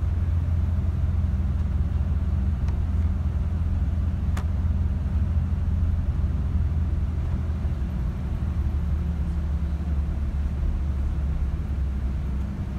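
Steady low rumble of a bus driving along a road, its engine and tyre noise heard from inside the passenger cabin.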